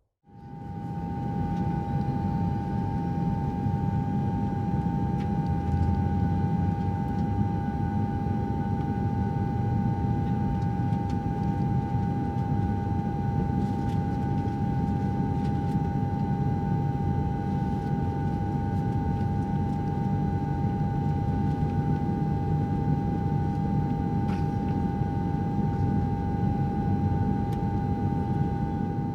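Steady aircraft engine sound effect: an even, high whine over a low rumble, fading in over the first second.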